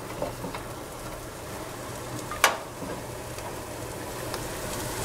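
Onions, garlic and spices sizzling in a non-stick frying pan over a steady vent-fan hum, with a few light scrapes of the spatula early on and one sharp knock about two and a half seconds in.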